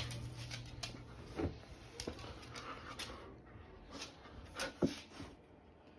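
Small dog playing with its toy: scattered soft clicks and knocks, with a faint low hum through about the first half.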